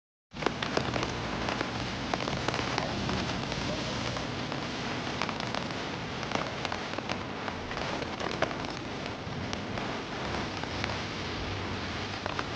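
Steady rain falling, an even hiss dotted with many sharp individual drop hits; it cuts in abruptly right at the start.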